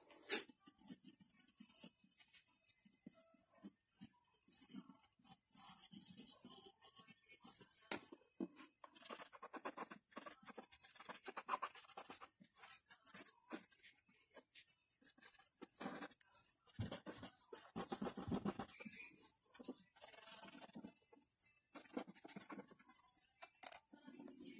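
Pencil shading on drawing paper: many short strokes that stop and start. A sharp click comes just after the start and another about a second before the end.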